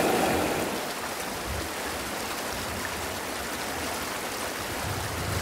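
Steady rushing of running water from a stream.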